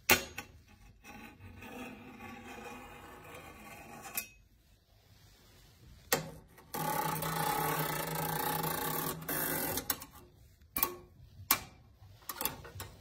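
A pen tapping and scraping along the bars of a 1/6-scale jail-cell display base. There is a sharp tap at the start, two longer stretches of scraping, the second one louder, and a quick run of taps near the end. The sound is what shows the bars to be metal.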